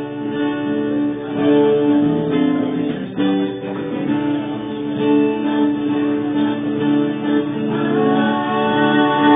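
Acoustic guitar strummed live, playing sustained chords; a higher melody line joins near the end.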